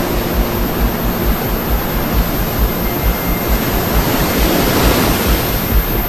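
Sea waves breaking on a beach, a steady wash of surf that swells a little near the end.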